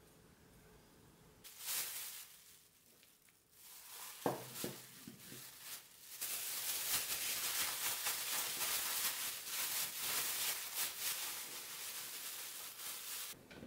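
Plastic bag rustling and crinkling as shredded cheese coated in potato starch is shaken inside it, a dense continuous rustle from about six seconds in that stops abruptly near the end. Before that, a brief rustle and a few light knocks as the cheese is tipped from the bowl into the bag.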